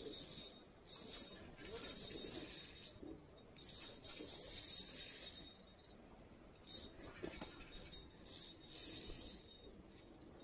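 Spinning fishing reel cranked in spurts: a high-pitched whir with short pauses between turns. The spurts are longer in the first half and short and quick near the end.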